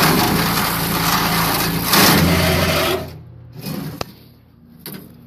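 Small gas engine of a rented 2-inch wood chipper running loudly and steadily, then cutting back sharply about three seconds in to a faint low hum with a few light clicks.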